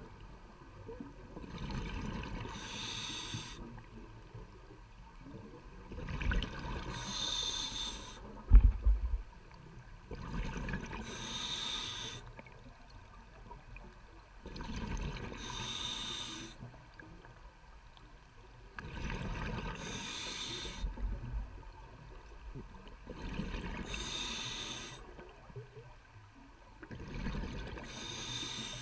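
A scuba diver breathing through a regulator underwater: a regular cycle of in-breath hiss and exhaled bubbles, about one breath every four seconds. A single sharp knock about eight and a half seconds in.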